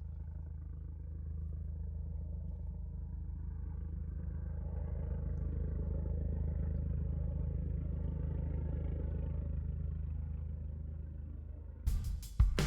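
Steady low engine drone that swells gently toward the middle and then eases off, as of a passing motor. Near the end, music with drum hits starts.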